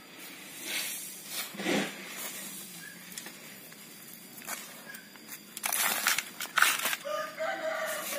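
A rooster crows near the end, one long call, over soft rustling and scraping of hands scooping loose compost potting mix off a plastic sack.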